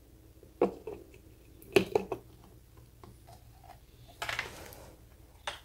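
Hard plastic clicks and knocks of a twist-lock port cap being handled and fitted against the plastic housing of an ECOXGEAR EcoBoulder Plus+ speaker, with a short rubbing scrape about four seconds in.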